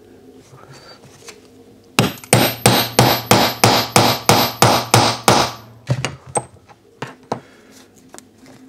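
A hammer strikes a steel snap-setting tool in a quick, even run of about a dozen metallic blows, nearly four a second, setting a snap fastener through a leather strap. A few light clicks follow as the strap and snap are handled.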